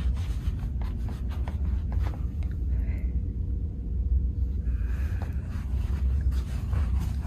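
Handling noise from a handheld phone camera carried while walking: a steady low rumble with soft scattered clicks and scrapes.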